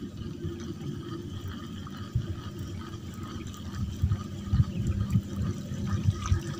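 Water sloshing and lapping against a small wooden boat's hull, with a few soft low bumps about two seconds in and again from about four seconds.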